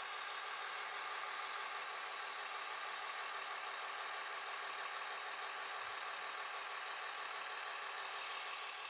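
Steady idling truck engine sound, an even low-level hum that does not change, laid over a plastic toy dump truck that has no engine of its own.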